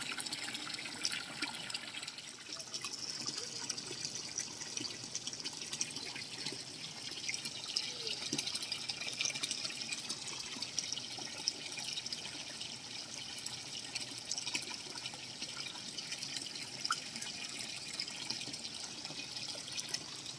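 Steady trickle of running water with many small drips and splashes.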